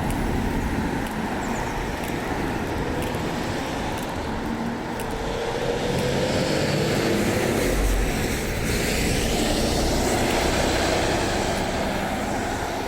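Road traffic: cars driving past with engine and tyre noise, and one vehicle passing louder about eight to eleven seconds in.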